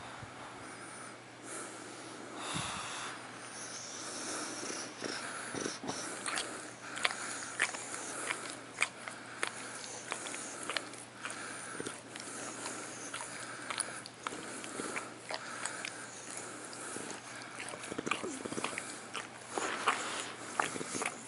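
English bulldog licking and smacking its lips: irregular wet mouth clicks and slurps, coming thicker from a few seconds in.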